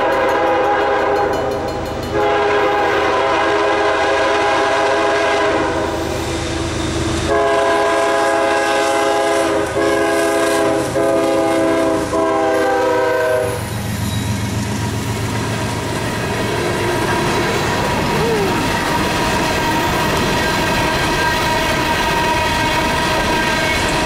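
Norfolk Southern freight locomotives passing close by, the lead unit sounding its multi-chime air horn in a series of long blasts that end about thirteen seconds in. Then the diesel engines rumble past, followed by the steady rolling and wheel clatter of a string of empty coal hopper cars.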